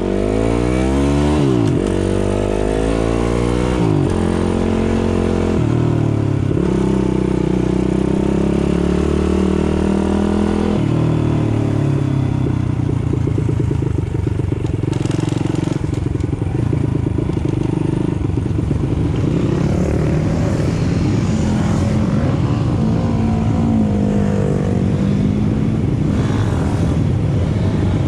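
Pit bike's single-cylinder four-stroke engine accelerating hard, its pitch climbing and dropping back several times in the first ten seconds or so, then running on at a rougher, steadier high pitch.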